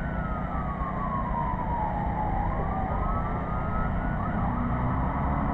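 An emergency-vehicle siren wailing, its pitch falling slowly for about two and a half seconds and then rising again, over a steady low rumble.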